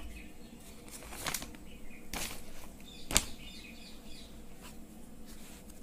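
A few short rustling swishes and one sharp tap about three seconds in, from a hand and pen moving over a sheet of paper, with faint bird chirps in the background.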